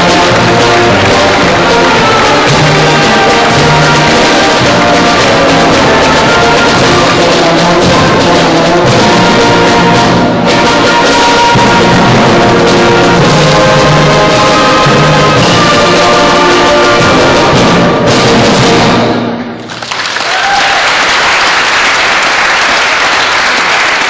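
Concert band playing, with brass to the fore; the piece ends about five seconds before the end and audience applause follows.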